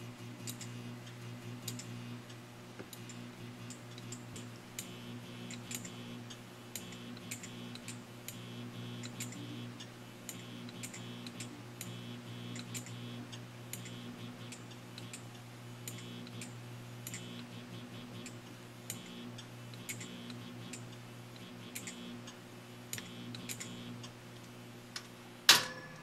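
Morse code being sent on an EF Johnson Valiant tube transmitter with no side tone: quick irregular keying clicks, a few each second, over a steady low hum, with a faint high whine that comes and goes with the keying. The Valiant's high-voltage supply serves as the side tone. There is one louder click near the end.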